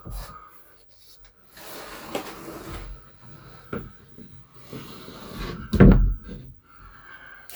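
A homemade sliding door being slid along its track with a scraping rumble, then a heavy knock about six seconds in.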